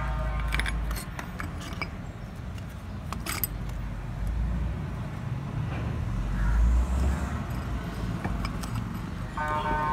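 Light metallic clicks and clinks as a greased through-bolt is fitted into the end cover of a truck starter motor, over a steady low rumble. A steady tone made of several pitches starts near the end.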